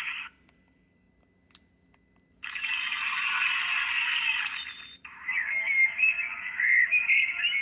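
Audiovox CDM9900 phone playing its preloaded ringtones through its small, tinny speaker. After a pause with a single click about a second and a half in, an even hiss-like ringtone starts at about two and a half seconds. At about five seconds it gives way to another tone with wavering pitch.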